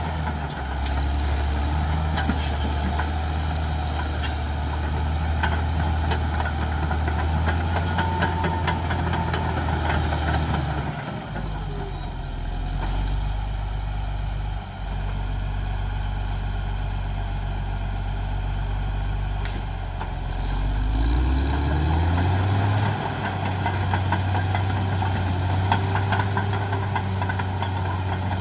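Caterpillar D6R XL bulldozer's diesel engine running hard, its pitch dropping about a third of the way through and climbing back up near the end as it revs again. Frequent sharp clanks and cracks sound over it throughout.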